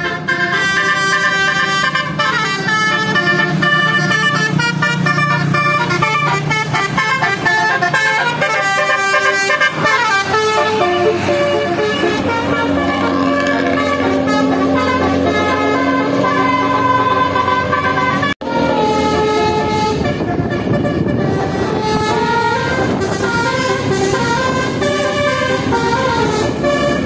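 Bus multi-tone 'telolet' air horns playing a long run of changing notes, with a brief break about 18 seconds in.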